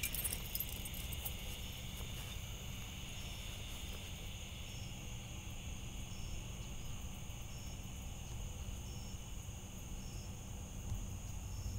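Evening insects, crickets, chirring steadily, with a short high chirp repeating about once a second, over a steady low background rumble.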